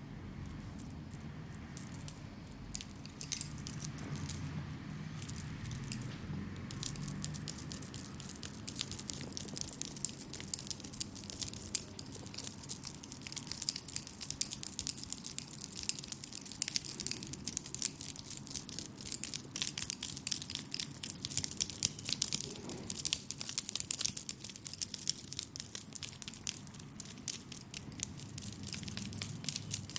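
Fast, continuous metallic jingling during brisk oil leg-massage strokes: sparse for the first several seconds, then dense and steady.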